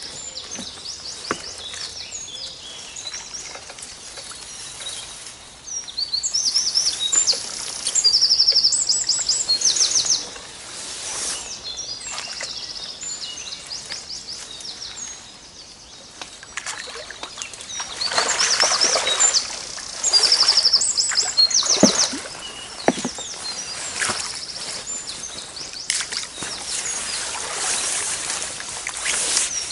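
Songbirds singing in a dawn chorus, with repeated quick trills, and two spells of splashing water, the loudest sounds, about a quarter of the way in and again past the middle, as a hooked mirror carp thrashes at the surface close to the bank.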